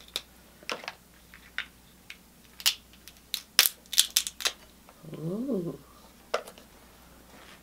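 King crab shell being cracked and cut open: a string of sharp, separate cracks and clicks, unevenly spaced. A short hummed "mm" rises and falls about five seconds in.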